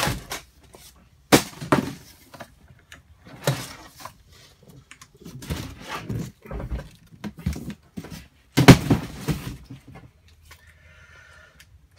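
Cardboard box being handled: flaps rustling, crinkling and scraping in a series of irregular bursts with a few knocks as the box and the washer gear case inside it are moved. The loudest burst comes about three-quarters of the way through.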